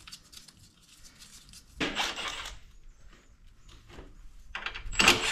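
Metal tools being handled against the quad's engine and frame: light clicks, a scraping rattle about two seconds in and a louder rattle near the end as a cordless ratchet wrench is fitted onto a bolt.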